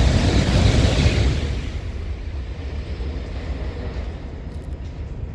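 N700-series Shinkansen bullet train passing through the station at speed without stopping, a loud rush of wheel and air noise. It fades after about a second and a half as the last cars go by, leaving a softer hiss.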